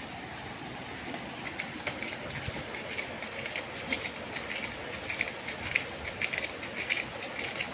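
A dog licking up ice cream: quick, irregular wet licking smacks, several a second, beginning about a second in, over a steady background rush.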